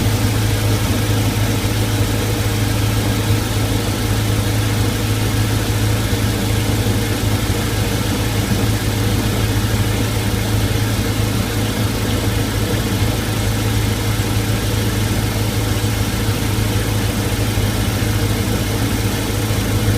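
MerCruiser 5.0L MPI 260 HP V8 marine engine running steadily at idle, with the ticking of a leaking starboard exhaust manifold gasket.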